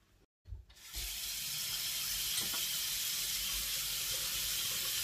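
Kitchen tap running steadily into a sink or pan, a constant rush of water that sets in about a second in.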